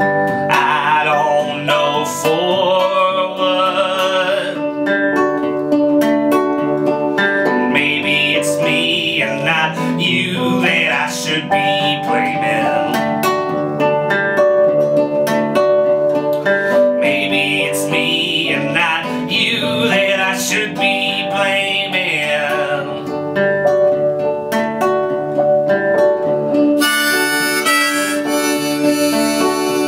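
Instrumental break of a folk song: a harmonica plays wavering, bending phrases over a nylon-string classical guitar and an upright piano.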